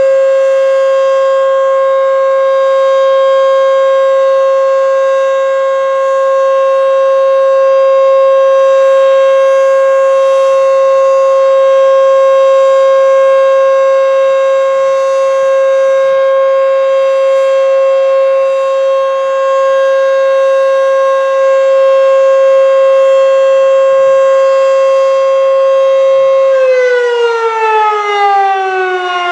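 Federal Signal Model 5 electromechanical warning siren sounding a loud, steady tone at full speed. Near the end the pitch starts falling as the siren winds down.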